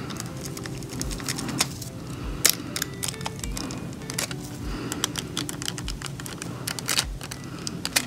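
Light, irregular clicking and tapping of long fingernails and a nail-art pen against a plastic nail tip as transfer foil is pressed and rubbed onto it.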